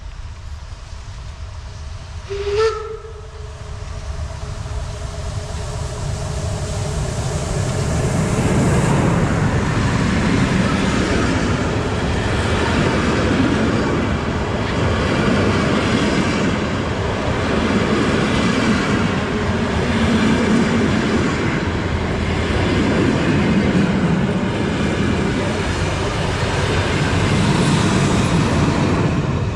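A steam locomotive gives one short whistle blast. A train then comes up and runs past, its noise building over several seconds and then holding loud and steady with slow swells.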